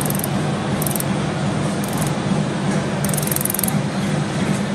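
Steady machine hum over a constant noisy din, with a few brief high hisses about a second apart and a longer one about three seconds in.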